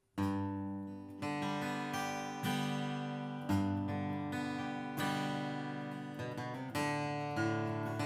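Martin D-42 steel-string dreadnought acoustic guitar strummed with a pick. Ringing chords start suddenly just after the beginning, with fresh strums every second or two.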